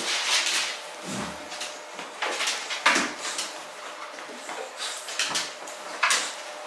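A dog being handled and turned around on a leash: scattered shuffling and rustling with a few short, light knocks and clatters at irregular moments.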